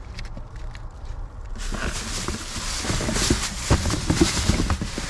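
Rummaging through a discarded bag in a dumpster: rustling with irregular light knocks and clicks of objects being handled, starting about a second and a half in.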